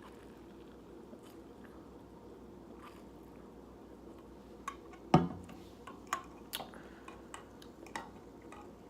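A person drinking soda: a few seconds of faint room tone, then from about halfway in a run of short sharp mouth clicks and swallows, the first the loudest.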